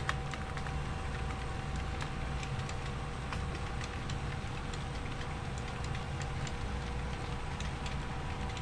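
HO scale model freight cars rolling along the track over a trestle: a steady low rumble with irregular clicking of the wheels over the rail joints, and a faint steady hum underneath.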